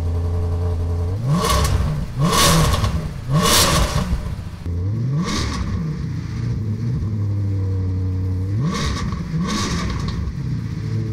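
Maserati 4200 GT's 4.2-litre V8 at idle, blipped about six times: three quick revs in the first four seconds, one more about five seconds in and a pair near the end, falling back to idle between. It runs through a right-hand factory muffler casing gutted into one large empty chamber, the loudest setup, so the right side sounds much louder than the stock left.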